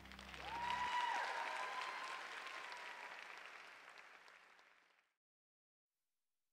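Audience applauding, with a few cheers over the clapping. The last held notes of the music stop about a second in, and the applause fades away to silence about five seconds in.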